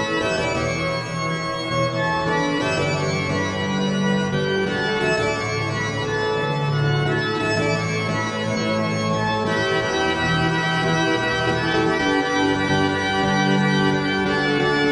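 Organ music: held chords over low bass notes that change every second or two.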